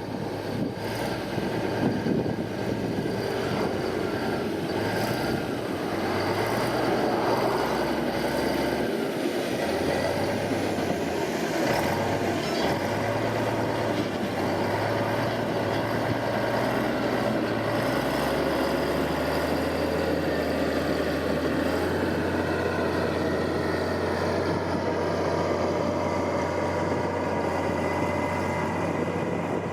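Heavy diesel earthmoving machinery running: the engine's pitch shifts up and down through the first half, then holds steady for the last third.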